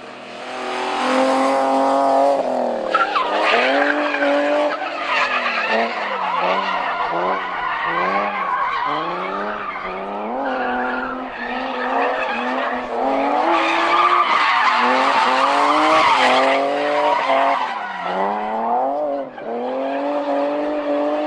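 BMW E36's M52B28 2.8-litre straight-six revving hard, its pitch rising and falling over and over as the car drifts, with tyres squealing and skidding on the tarmac.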